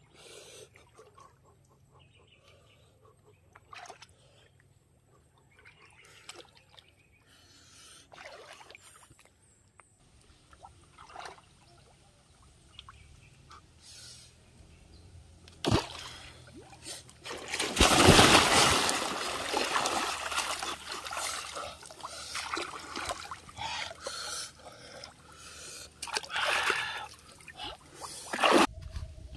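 Water splashing in a shallow river during spearfishing with a bamboo spear: quiet at first with faint small water ticks, then a sharp hit and a loud splash a little past halfway, followed by sloshing and trickling water that slowly dies down.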